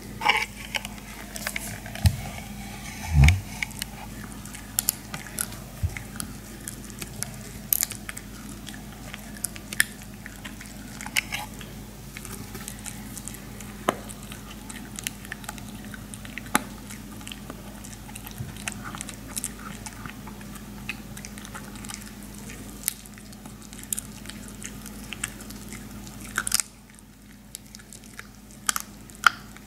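Maltese dog chewing a slice of dried pig ear: irregular crunching and gnawing clicks. Two loud dull thumps come about two and three seconds in, over a steady low hum.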